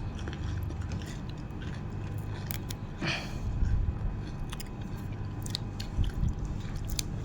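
A person chewing and biting mouthfuls of nam tok moo, spicy grilled pork salad, close to the microphone, with small wet clicks and crunches.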